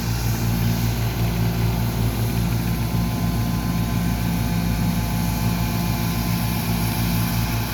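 Track hoe (tracked excavator) diesel engine running steadily under work, heard from inside its cab.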